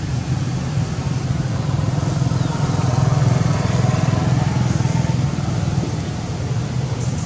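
Steady running of a nearby motor vehicle engine, such as a motorbike idling, swelling slightly about three seconds in.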